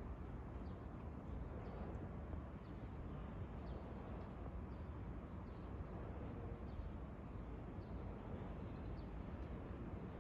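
Outdoor background: a steady low rumble with faint, short bird chirps every second or so.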